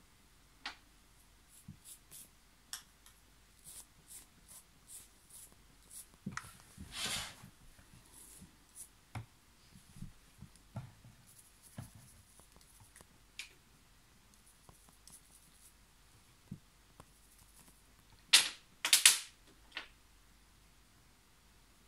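Scattered small clicks and taps, with a short rustling noise about seven seconds in and two louder noises close together near the end.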